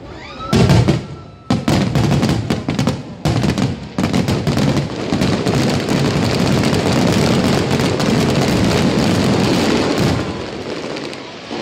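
Fireworks finale: shells bursting in quick succession, first as separate sharp bangs, then running together into a dense continuous crackling barrage with a deep rumble, easing off near the end.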